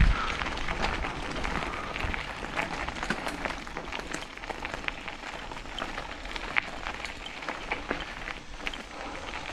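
Mountain bike riding on a dirt trail: a steady rush of tyre noise with many scattered small clicks and rattles.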